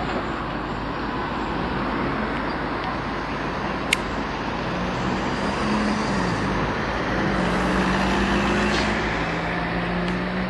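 Heavy vehicle engine running over steady traffic noise, its pitch rising about halfway through and then holding. There is a single sharp click about four seconds in.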